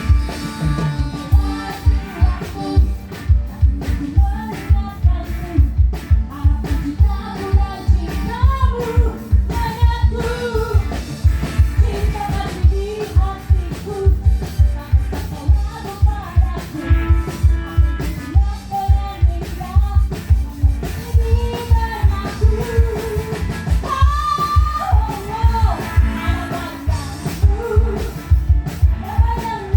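Band music with a steady beat and a woman singing over it, played live at a soundcheck.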